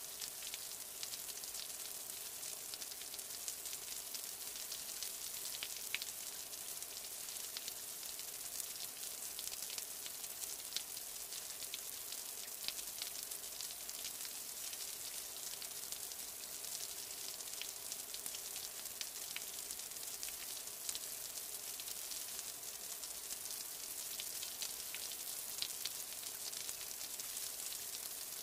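Steady rain falling: a continuous even hiss with many small ticks of single drops scattered through it.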